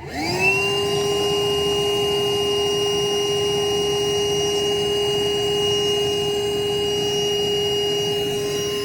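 Wet/dry shop vacuum spinning up and running with a steady high whine, sucking on a furnace condensate drain line that is plugged.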